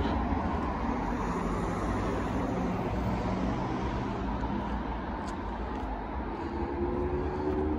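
Road traffic: a steady hum of cars on a busy road, with one engine's note rising slightly near the end.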